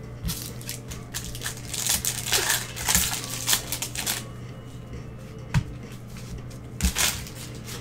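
Crinkling and tearing of 2021 Bowman baseball card pack wrappers as they are opened by hand, densest in the first half. A couple of sharp clicks follow as the cards are handled.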